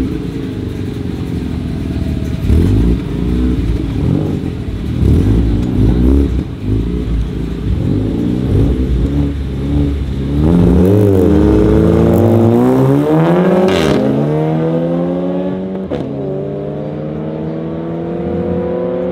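A Mazda RX-8 and another car at a drag strip start line, their engines revved in short uneven blips. About ten seconds in, both launch and accelerate hard, the engine pitch climbing steeply, dropping back at a gear change and climbing again as they pull away.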